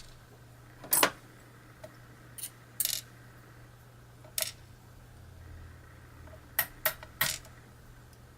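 Small metal lock pins and springs being dumped out of a pin-tumbler lock, landing as a series of sharp metallic clicks at irregular intervals, with three close together near the end.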